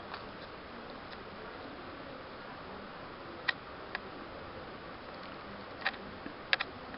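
Faint steady hiss broken by a few short, sharp clicks: one at the start, two about three and a half to four seconds in, and a quick group near the end, the loudest pair coming close together.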